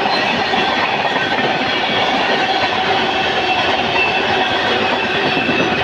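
Coaches of the Patna–Ernakulam Superfast Express passing through a station at high speed, around 130 km/h. The wheels on the rails make a loud, steady rumble.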